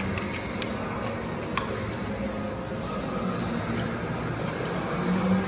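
Steady hum and background noise of an indoor electric go-kart track, with a few sharp clicks from the kart's seat harness being fastened.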